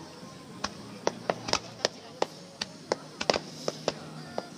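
Fireworks shells bursting in quick, irregular succession during a finale, sharp bangs about three times a second.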